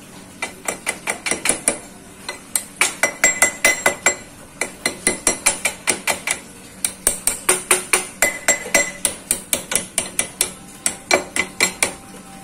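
Hand hammer tapping a new exhaust pipe into a Honda Revo motorcycle engine's exhaust port: quick, light metallic strikes, about five a second, in several runs with short pauses between them, as the pipe is knocked home into its seat.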